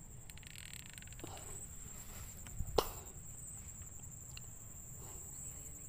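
Steady, faint high-pitched insect buzzing, with one sharp click a little under three seconds in.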